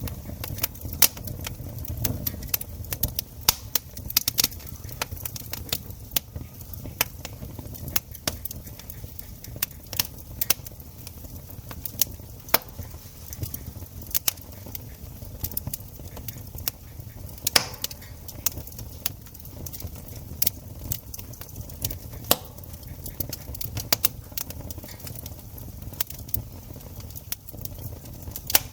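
Wood campfire crackling, with many irregular sharp pops and snaps over a low steady rumble. A few louder pops stand out, one about two-thirds of the way through.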